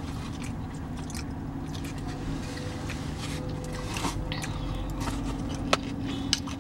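A person biting into and chewing a cooked string bean, with a few sharp crunchy clicks near the end, over a steady low hum.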